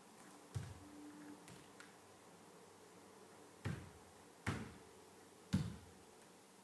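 Bare feet landing and stepping on a dance floor: four dull thumps, one about half a second in and three close together in the second half.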